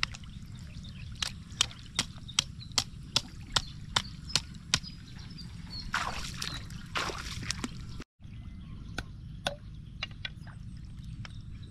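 Water sloshing in a shallow pond as branch stakes are worked into it, with a louder stretch of sloshing about six seconds in. Under it runs a regular series of sharp clicks, about two or three a second. The sound drops out completely for a moment a little after eight seconds.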